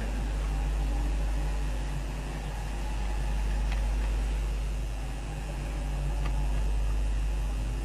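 Steady low hum with hiss, slowly swelling and easing, the background noise of an old live recording through a public-address system, with a couple of faint clicks.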